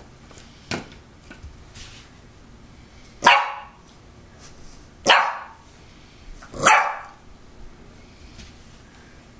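A bulldog puppy barking: three short, sharp barks a second or two apart, starting about three seconds in.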